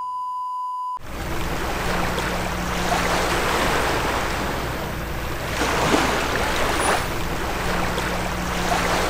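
A steady 1 kHz test-tone beep, the tone that goes with television colour bars, held for about a second and cut off abruptly. Then a steady wash of sea waves on the shore, swelling gently about every three seconds.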